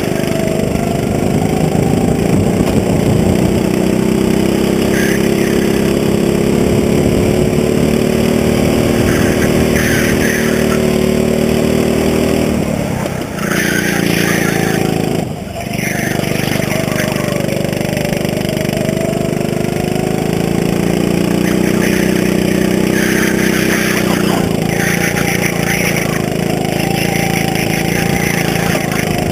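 Go-kart engine running hard under the driver. Its pitch rises and falls as the kart speeds up and slows for corners, and the revs drop briefly twice around the middle.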